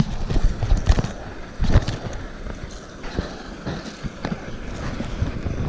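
Handling noise from holding a freshly caught small largemouth bass close to the microphone: irregular knocks and rustles, with two louder knocks near the start and nearly two seconds in.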